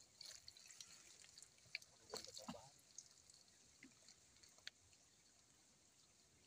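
Near silence, with faint wet clicks and squelches of a hand digging into soft mangrove mud among the roots.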